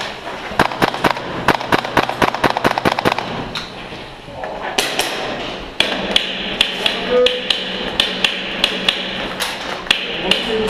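Rapid airsoft gun shots, about six or seven a second, for the first three seconds. From about six seconds in, a music track with a steady beat comes in.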